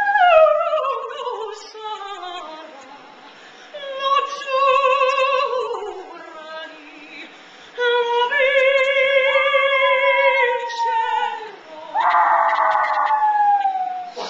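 Puppy howling in a run of long, wavering notes, each held for a few seconds and sliding down in pitch at its end, about four in a row.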